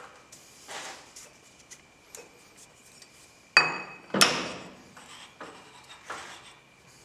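Cast steel chuck backing plate being pushed onto and seated against a lathe spindle nose taper, test-fitting it for contact. Two sharp ringing metal clanks about half a second apart near the middle, with lighter metal-on-metal knocks and scrapes before and after.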